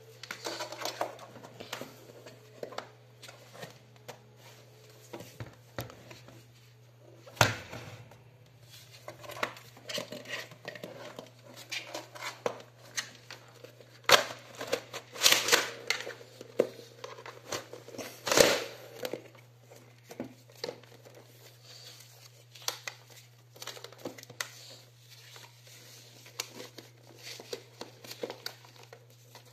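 Handling noise of a collapsed retractable plastic stool: irregular clicks and knocks of its hard plastic segments and end caps, with rustling as it is turned over, and a few sharper knocks among them. A steady low hum runs underneath.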